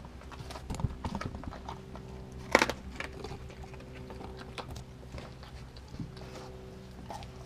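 A Doberman gnawing and crunching a piece of still-frozen raw chicken on a concrete floor, with irregular crunches, clicks and knocks and one loud crack about two and a half seconds in.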